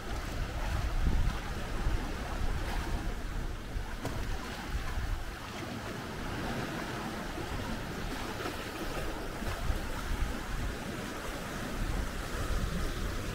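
Sea waves washing onto the beach in a steady, shifting hiss, with wind rumbling on the microphone.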